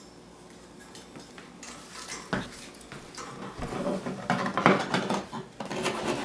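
Metal knife scraping and clinking against a bird nest box, scraping off dried droppings. There is a single knock about two seconds in, then the scraping grows louder and more rapid.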